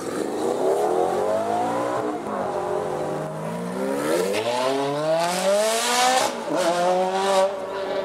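Supercar engines accelerating hard, revving up through the gears: several rising sweeps in pitch, each broken by a brief drop at an upshift, loudest from about five to seven seconds in.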